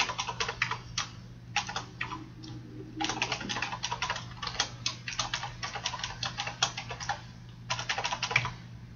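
Computer keyboard typing: quick runs of keystroke clicks broken by short pauses, the longest run in the middle, over a faint steady low hum.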